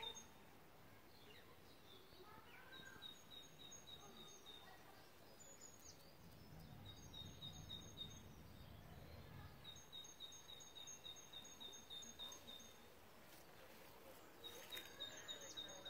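Faint outdoor ambience in which a bird repeats quick runs of short high notes, each run lasting one to two seconds, several times over. A low rumble rises and fades in the middle.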